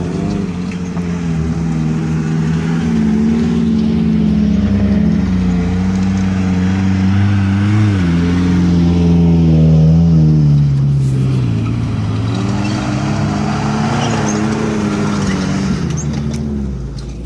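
Off-road 4x4 engine running close by, its pitch rising and falling as it is revved and eased off, then fading away near the end.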